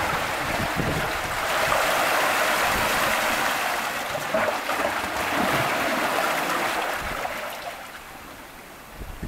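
Seawater rushing and churning through a narrow gully between shoreline rocks as the surge foams in and drains back out. The rushing is steady for most of the time and eases off near the end.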